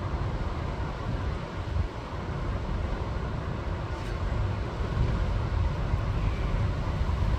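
Strong gusty storm wind: a low, uneven rumble of wind buffeting the microphone over a steady rushing hiss.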